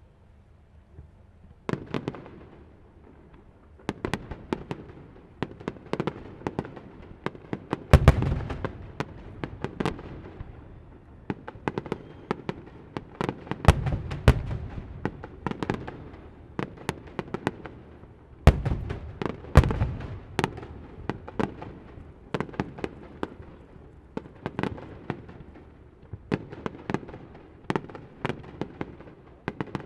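Fireworks display: a rapid run of sharp bangs and crackling, starting about a second and a half in, with several heavy deep booms of shells bursting overhead.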